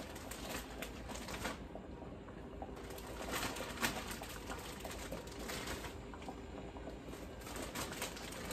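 Kitchen handling noise: rustling and scattered soft knocks as root vegetables are taken from a plastic bag and dropped into a cooking pot.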